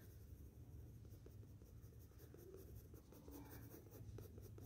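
Faint scratching of a Doms colour pencil's tip rubbing over drawing paper in short, repeated blending strokes.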